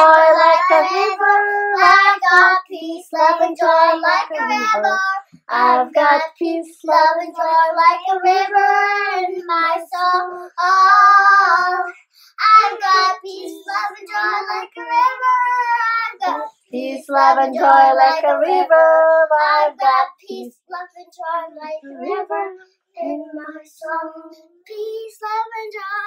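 A young girl singing a children's song unaccompanied, in short phrases with brief pauses between them.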